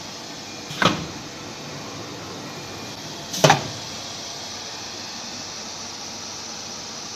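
CNC router's pneumatic automatic tool changer giving two short, sharp clunks with a burst of air, about two and a half seconds apart, over a steady machine hiss.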